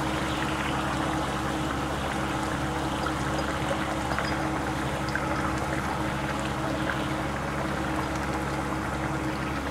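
Chicken and tomato broth for pulao boiling in a kadai: a steady bubbling hiss, with a steady low hum underneath.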